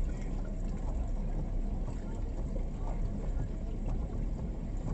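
Steady low rumble and slosh of floodwater around a car moving slowly through deep water as it pushes a stalled car ahead of it, with the engine running low underneath.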